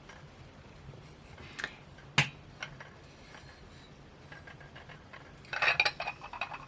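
Small ceramic pieces being handled and set down: a sharp clink about two seconds in, a few light ticks, and a short burst of clattering and rustling near the end.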